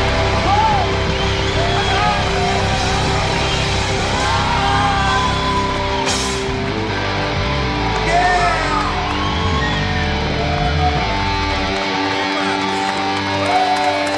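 Live band music with guitar, drums and held notes, over whoops and yells from a studio audience. The bass and drums drop out about two seconds before the end, leaving only the held notes.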